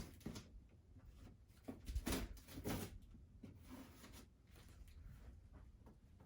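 Cardboard box being handled and opened: scattered soft rustles and knocks, the loudest about two seconds in.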